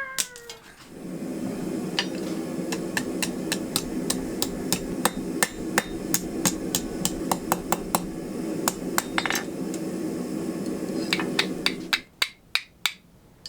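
Hand hammer striking a piece of steel file on an anvil, shaping it into a flint striker, with sharp ringing blows about two to three a second. A steady hum runs under the blows and cuts off about twelve seconds in, while a few last blows follow.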